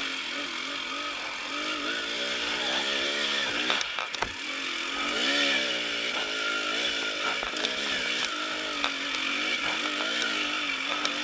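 KTM enduro motorcycle engine revving up and down repeatedly as it is ridden off-road, with a few sharp knocks about four seconds in.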